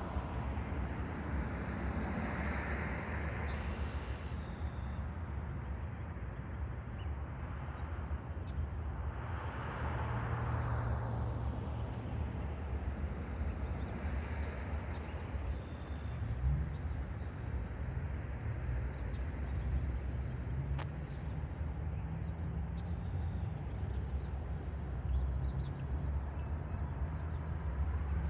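Road traffic: cars passing one after another, their tyre and engine noise swelling and fading every few seconds over a steady low rumble.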